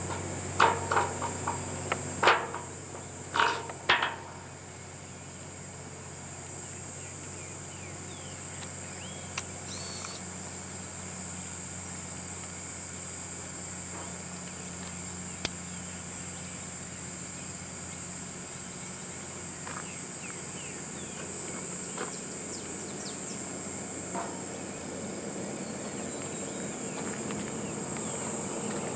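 Steady high-pitched insect chorus in open countryside, with faint short chirps later on. In the first four seconds, about five sharp knocks or clicks stand out above it.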